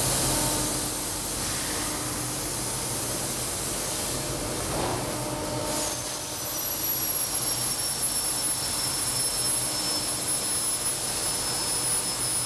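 Sheet-metal laser cutting machine with a Rofin laser, running and cutting flat stock: a steady hissing rush with a faint hum underneath. About six seconds in, a thin high whine sets in, dropping a little in pitch and then holding steady.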